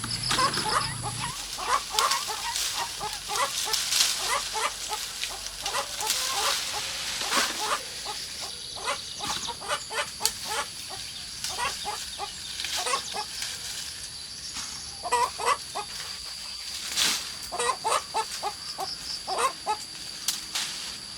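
Farmyard chickens clucking in short, irregular calls, with a steady high thin whine underneath from about eight seconds in.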